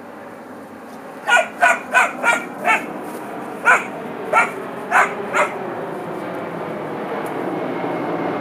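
Three-month-old puppy barking in play: about nine short, high yapping barks in two quick runs. A low steady rumble grows louder toward the end.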